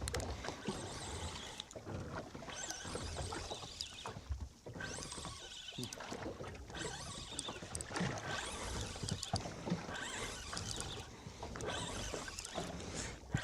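Wind and water sloshing against a small fishing boat's hull at sea, an uneven rushing noise that swells and drops every second or two, with small scattered knocks.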